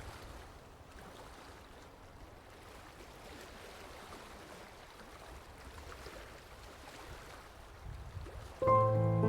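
Faint, steady wash of gentle sea waves lapping at the shore, with a brief low swell near the end. Near the end, louder music with sustained pitched notes cuts in abruptly over it.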